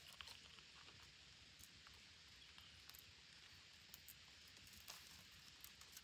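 Near silence with faint, irregular clicks and taps: red-breasted parakeets' beaks pecking and gnawing at a dead wooden stump.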